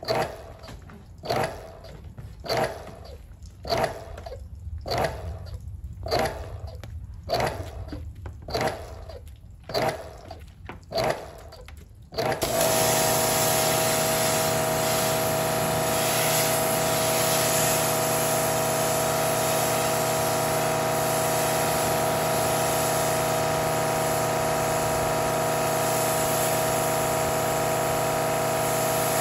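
Small electric water pump pulsing on and off in short bursts about every second. About twelve seconds in it switches to running steadily, a constant hum over a hiss of spraying water.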